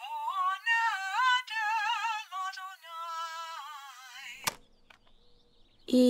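A high, tinny recorded voice chanting a gliding, wavering melody, played back on a small portable tape player. It stops with a sharp click about four and a half seconds in, leaving a faint hiss.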